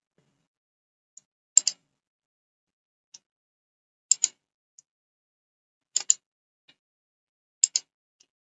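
Computer mouse clicking four times, a couple of seconds apart, each click a quick double snap of the button pressing and releasing, with a few faint ticks in between. The clicks collapse code blocks in the editor one by one.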